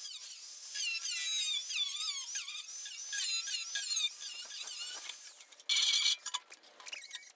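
A grinder's abrasive wheel working thin rusty sheet metal, squealing with a wavering, sliding pitch. A short, harsh grinding burst comes near the end.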